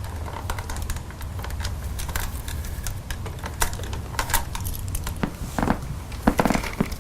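Irregular plastic clicks and rattles, louder and closer together in the second half, as the pressed-in tabs are released and the plastic handle casing of a Dyson DC65 vacuum cleaner is worked loose.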